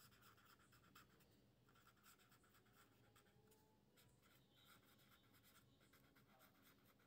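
Near silence, with very faint scratching strokes of a felt-tip pen writing on paper.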